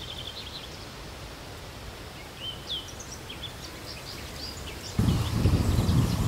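Small birds singing faintly, with scattered chirps and short rising whistles. About five seconds in, a louder low rumble on the microphone sets in.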